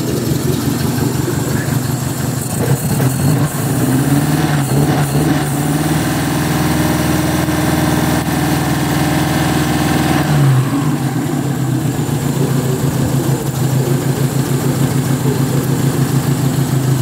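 MG TD's XPAG four-cylinder engine running just after starting. Its revs rise and hold a little higher from about six seconds in, then drop back to a steady tick-over about ten seconds in.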